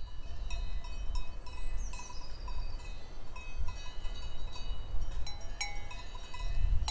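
Cowbells on grazing cattle ringing irregularly, several bells of different pitch clanking a few times a second over a low steady rumble.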